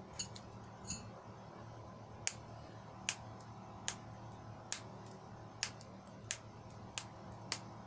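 Thin mirror glass strips snapped by hand along scored lines, small pieces breaking off with short, sharp clicks about once a second, over a steady low hum.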